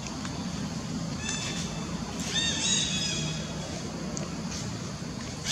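Short, high-pitched animal calls over a steady low hum, the loudest run of calls about two to three seconds in.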